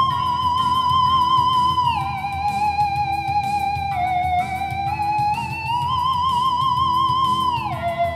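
Theremin playing a slow melody, one note at a time, with a wide vibrato. It slides down to a lower note about two seconds in, glides slowly back up through the middle, and drops sharply again near the end.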